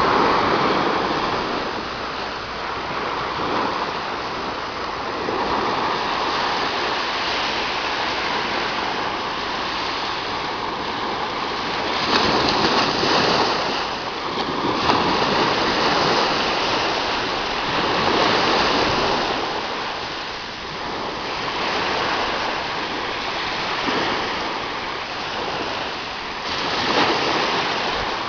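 Ocean surf on a beach: a continuous wash of waves, swelling louder every few seconds as breakers come in and fall.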